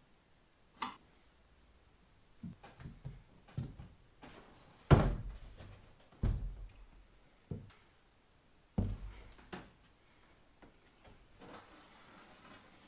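Irregular knocks and thumps of parts and tools being handled and set down on a workbench, about a dozen, the loudest about five seconds in.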